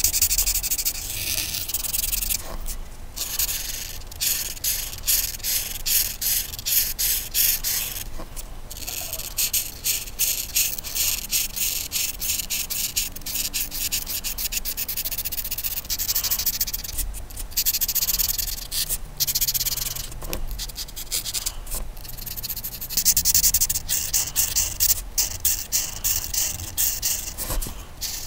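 Coloring utensil rubbed over paper in quick back-and-forth strokes, a continuous scratchy rubbing broken by a few short pauses.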